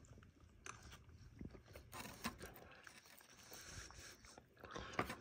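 Faint, scattered clicks and short scrapes of a metal fork digging into a chicken pot pie's pastry crust and filling in its paperboard box, a little busier near the end.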